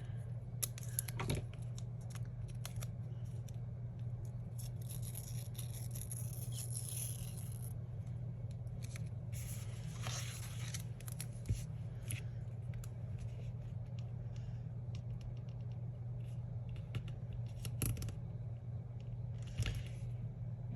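Washi tape being pulled off the roll and cut, with scattered small clicks and scratchy rustles of paper handling, over a steady low hum.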